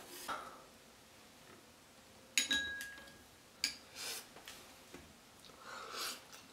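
A few sharp clicks and light taps over near quiet, the first with a brief ringing note.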